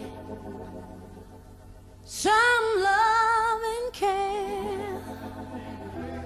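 Gospel song: a female singer holds long, wavering notes with heavy vibrato over soft sustained backing chords. The voice comes in about two seconds in, with a second phrase about two seconds later.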